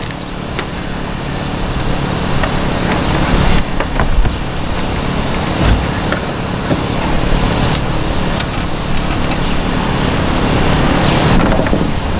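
Steady low motor-like rumble with a traffic-like noise over it. Scattered light knocks and clicks come from a plastic roof vent fan being handled and set onto its mounting flange.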